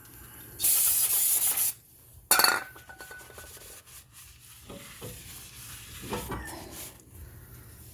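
Aerosol brake cleaner sprayed in one hiss of about a second, onto the new brake rotor to clean off its factory anti-rust oil. A sharp metallic knock with brief ringing follows, then quieter rubbing and handling sounds.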